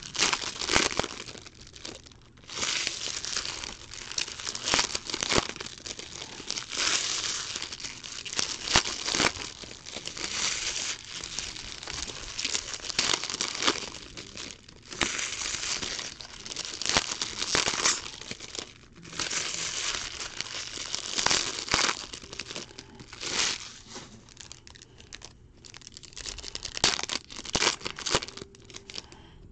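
Foil trading-card pack wrappers crinkling and tearing as packs are ripped open and crumpled by hand, in irregular bursts with short pauses.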